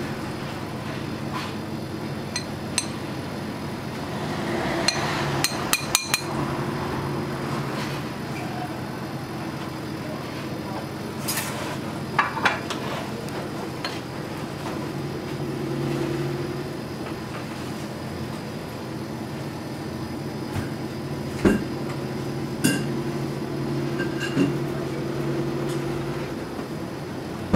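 Sharp knocks and clinks of kitchen utensils and tableware, coming in scattered groups with a cluster of quick ones about five to six seconds in, over a steady low hum.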